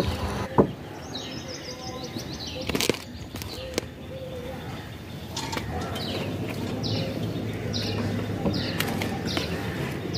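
A small bird chirping in short, high, falling notes, a few early on and then one every half second or so in the second half. Under it, scattered scrapes and clicks of a hand digging tool and fingers working soil out of a cut-down water jar, the sharpest about half a second in.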